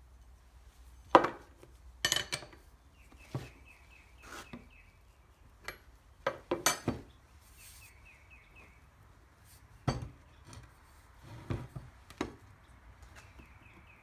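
Scattered metal clanks and knocks of a wrench and a Cub Cadet steering gearbox and column being handled on a workbench while the gearbox nut is tightened down.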